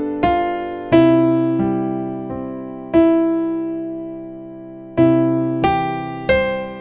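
Background music: slow, sparse piano notes and chords, each struck and left to ring and fade before the next, with one long held chord in the middle.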